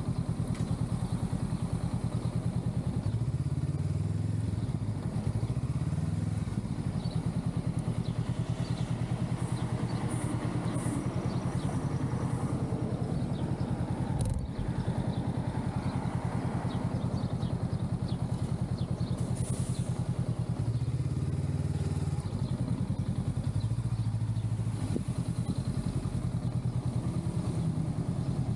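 Honda Rebel 500's parallel-twin engine running at low speed in stop-and-go city traffic, its note shifting a few times as the throttle changes. One short click about fourteen seconds in.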